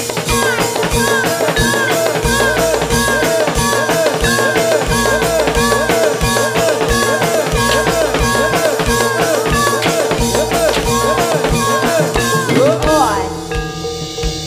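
Jathilan dance music, played loud through a sound system: fast, even drumming and rattling percussion under a melodic figure that repeats about twice a second. The percussion breaks off near the end.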